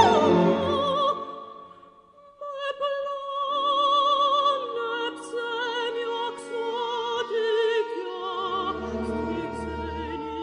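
Operatic soprano with symphony orchestra: a loud, high sung note with vibrato fades away in the first second or so. After a brief hush, a soft, slow orchestral passage of sustained, wavering notes begins about two and a half seconds in.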